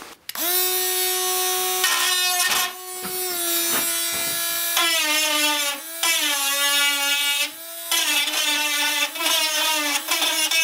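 Dnipro-M MG-12 12 V cordless rotary tool starting up and drilling into a plastic car grille. Its high steady motor whine sags slightly in pitch and dips in loudness a few times as the bit bites into the plastic.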